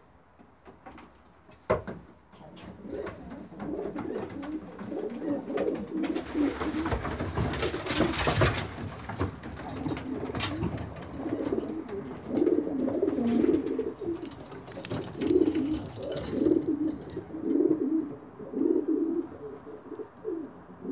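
Racing pigeon cocks cooing, one call after another in a low repeated coo. A spell of rustling noise runs under the cooing from about six to nine seconds in.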